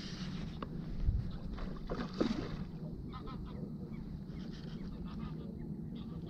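Wind buffeting the microphone as a steady low rumble, with a short pitched call about two seconds in that rises and falls.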